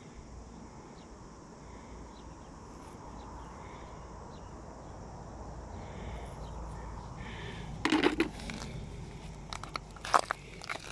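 Shells and pebbles on a shell beach crunching and clattering in two short bursts, one about eight seconds in and another near the end, over a steady low background rumble.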